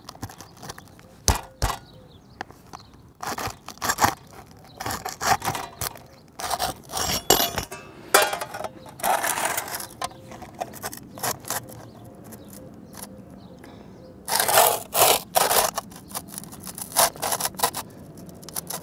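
Flat pry bar scraping and prying under asphalt roof shingles to lift out a nail, then a metal flashing plate being slid and shuffled against the shingles. It comes as a run of short scrapes, clicks and knocks, with the loudest scraping a few seconds before the end.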